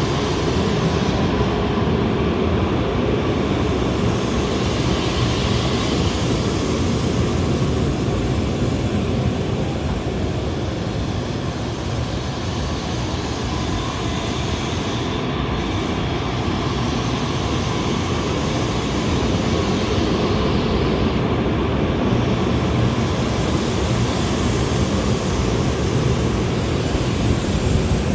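Steady low rumble of the N700S shinkansen set rolling slowly over a level crossing during a shunting move.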